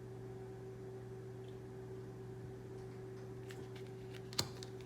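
Steady low hum of room tone with faint ticks of oversized tarot cards being handled, then one sharp tap near the end as a card is set down.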